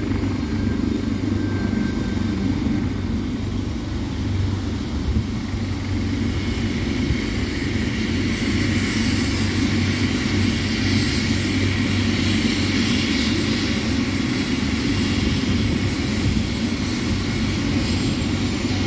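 Helicopter running on the ground with its rotors turning: a steady high turbine whine over a low rumble, growing a little louder and brighter about seven seconds in.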